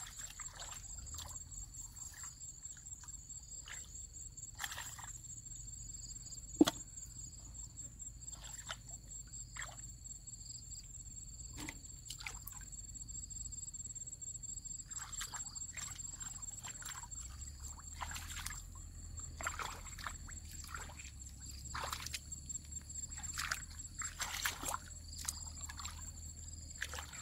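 Hands sloshing and splashing through shallow muddy water while feeling in the mud for fish, the splashes coming more often in the second half. A constant high-pitched buzz runs underneath, and a single sharp knock sounds about six and a half seconds in.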